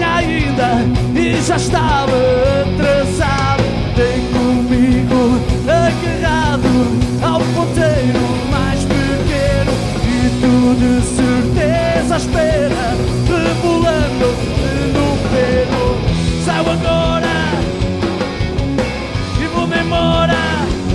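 Live rock band playing: distorted electric guitars, bass and a drum kit, with a man singing lead.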